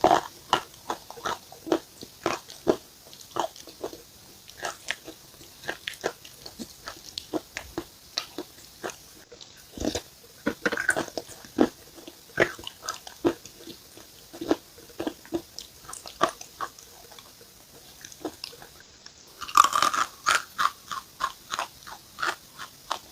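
A person biting and chewing something crunchy close to the microphone: a steady run of short, sharp crunches a few times a second, with a louder flurry of crunching about twenty seconds in.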